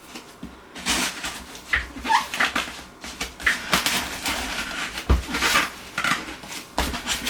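A cardboard shipping box being cut open with a knife and torn, in irregular scraping and ripping strokes.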